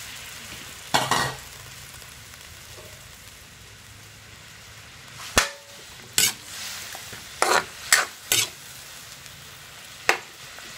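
Marinated chicken pieces sizzling in a metal wok while a metal spatula stirs them, scraping and knocking sharply against the pan several times.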